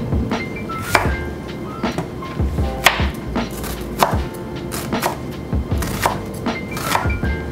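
Kitchen knife chopping through a halved onion onto a plastic cutting board, a sharp cut about every half second, over background music.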